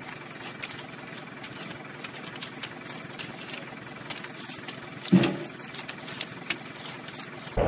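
Engine of a pineapple-harvest vehicle running steadily, with scattered sharp knocks of pineapples landing in its bin and one louder thump a little past halfway.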